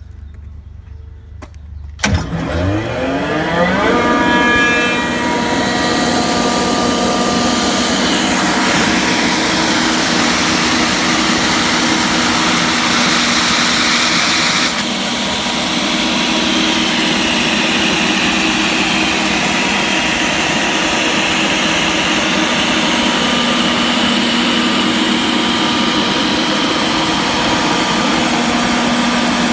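A LeROI 40 hp air-cooled rotary screw air compressor on three-phase power starting up about two seconds in: a rising whine as the electric motor spins up over a couple of seconds, then loud steady running with a constant hum and hiss. About halfway through the hiss drops slightly for a moment, then the running continues steadily.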